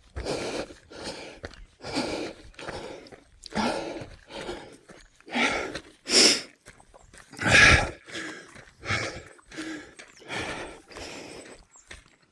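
A person panting heavily from the exertion of running uphill, with loud breaths in and out about once a second.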